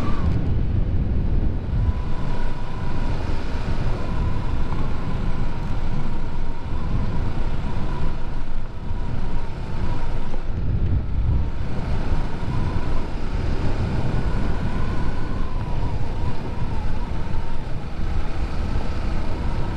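Bajaj Pulsar NS 200's single-cylinder engine running steadily under way, with a thin steady whine over a dense low rumble of wind on the microphone.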